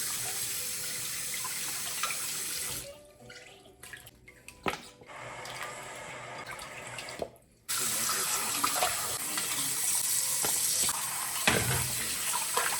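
Water tap running into a sink, shut off a little under three seconds in, with a single sharp knock a couple of seconds later. The water runs lightly again, stops briefly, then runs strongly from about eight seconds in.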